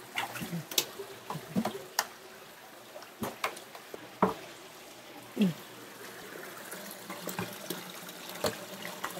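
Water trickling steadily, broken by scattered short splashes and knocks as a live carp is handled in the water of a tank and a plastic bucket.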